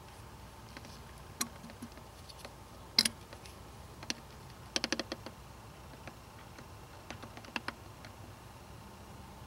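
Scattered sharp plastic clicks and taps from a fluid suction syringe knocking against a plastic water bottle as old power steering fluid is emptied into it. The loudest click comes about three seconds in, followed by a quick run of clicks about halfway through.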